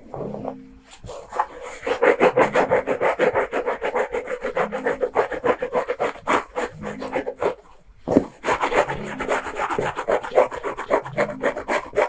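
Fingernails scratching quickly through hair at the scalp, a dense rasping rub of many strokes a second. It builds up over the first two seconds and breaks off briefly about eight seconds in before starting again.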